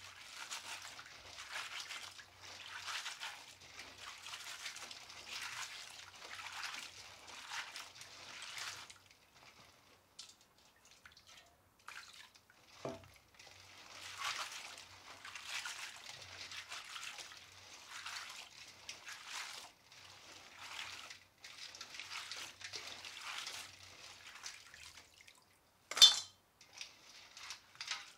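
Water sloshing and splashing in a stainless steel bowl as live crawfish are scrubbed by hand, in strokes about once a second, with a short pause partway through. Near the end comes one sharp knock, the loudest sound.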